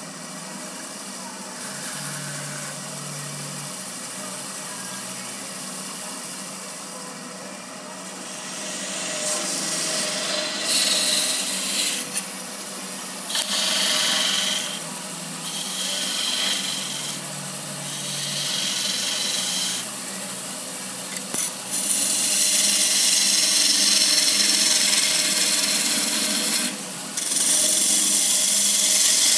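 Wood lathe spinning a thin-walled wooden goblet while a hand-held turning tool cuts its wall: a hissing scrape that comes in irregular spells after a quieter start, then grows loud and steady about three-quarters of the way through with one short break near the end.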